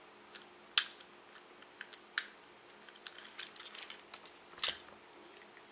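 Irregular small clicks and taps of hard plastic as the legs of a Chubby Puppies toy dog are clicked into position, with louder clicks about a second in, about two seconds in and near five seconds in.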